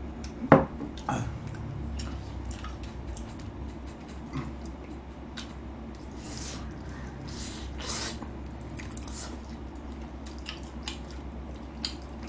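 Close-up wet chewing and smacking of sauce-coated fried chicken, with scattered light clicks of chopsticks and foil and a few short hissy slurps. A single sharp knock about half a second in.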